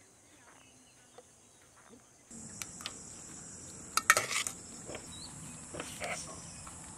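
Steady high-pitched insect chirring that comes in about two seconds in. Over it, a metal serving spoon clinks and scrapes against a metal dish in a sharp clatter about four seconds in, with lighter clinks near six seconds.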